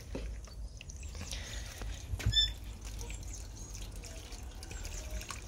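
Water from a heater-matrix flush trickling out of a garden hose into a plastic tub of water, carrying old antifreeze and debris out of the heater core. A short high chirp sounds about two seconds in.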